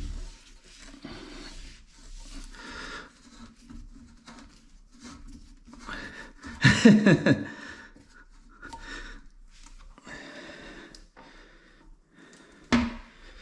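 Breathing and handling noises as a toilet is shifted into place, with a louder wavering pitched sound lasting about a second about seven seconds in and a sharp knock near the end.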